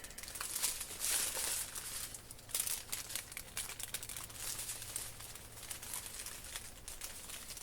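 Small plastic bags of diamond-painting drills crinkling as they are handled and gathered back together, in irregular rustles.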